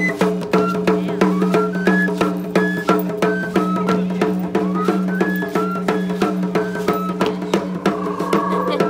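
Traditional flute-and-drum music for the Tlacololeros dance: a short melody climbing in quick little steps and repeating, over a steady low drone and a fast, steady drumbeat.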